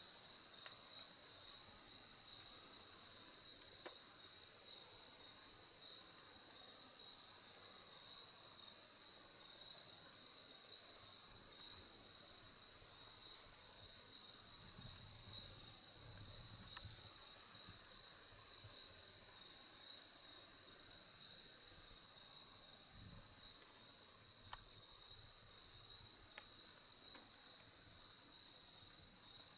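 Steady, high-pitched chorus of trilling insects. A faint low sound comes twice about halfway through.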